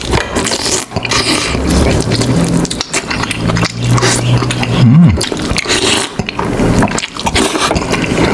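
Close-miked eating of a seafood steamboat: chewing, smacking and slurping of broth from a wooden spoon, with the clicks and scrapes of spoon and chopsticks. A brief low hum about halfway through.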